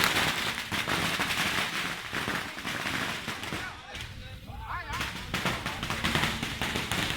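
A string of firecrackers going off in rapid, crackling succession. It thins out briefly about four seconds in, then picks up again.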